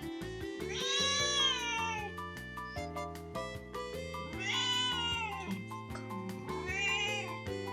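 Tuxedo domestic cat meowing three times: a long drawn-out call, a second a few seconds later, and a shorter one near the end, each sliding down in pitch. Background music with a steady beat plays underneath.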